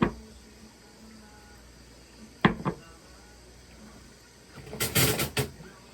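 Kitchen knocks and clatter. There is a sharp knock, then a quick double knock about two and a half seconds in, then a louder rattling clatter lasting under a second near the end, like a cupboard door and dishes being handled.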